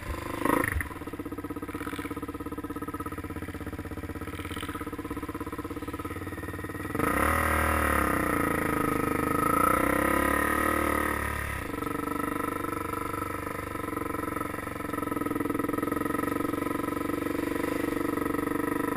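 Dirt bike engine running while riding, with a short thump about half a second in. The engine gets louder and its pitch climbs as the throttle is opened about seven seconds in, then it eases back about twelve seconds in.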